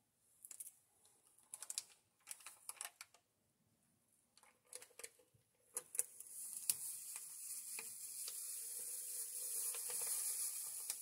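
Scattered light clicks and rustles of a drink-mix packet being handled, then from about six seconds in a steady hiss of powdered orange drink mix pouring into a plastic 2-quart bottle of water, growing slightly louder toward the end.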